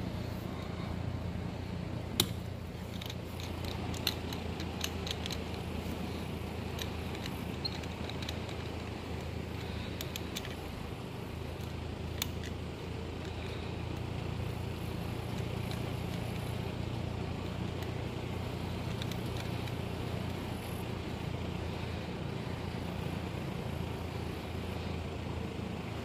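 Scattered small clicks and taps of hands working an inline fuse holder and battery wiring, over a steady low hum.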